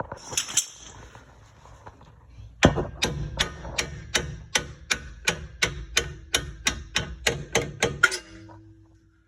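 A hammer tapping on the Camry's stuck rear strut mounting bolts to drive them out. After a little clatter, a steady run of about nineteen sharp blows comes at roughly three or four a second for about five seconds, the first blow the loudest.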